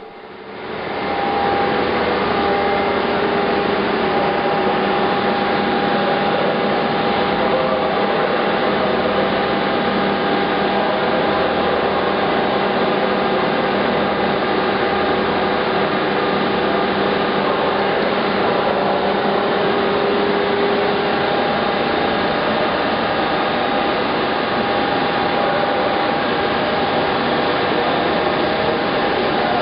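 SMTW H-163 cylindrical grinder running, a steady loud whirring noise with a few steady hum tones through it. The sound comes up over about the first second and then holds level.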